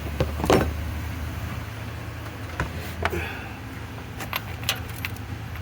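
A few sharp metallic clinks and knocks from hand tools and engine parts being worked on, the loudest about half a second in, over a steady low hum.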